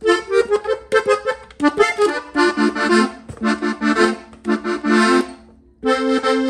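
Hohner Panther three-row diatonic button accordion in F, playing a short ornamental run on its treble buttons: quick notes and chords in short, separate phrases, with a brief pause about five seconds in before it starts again.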